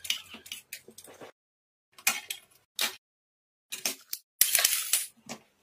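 Plastic clicks and rattles of an optical disc drive's tray and laser mechanism being handled and pried apart, in short snippets broken by dead silence, with a denser clatter near the end.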